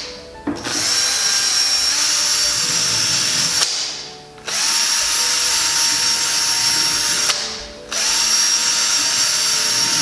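Cordless drill drilling pilot holes: three runs of about three seconds each, the motor speeding up quickly and then running steadily, with short pauses between where it winds down.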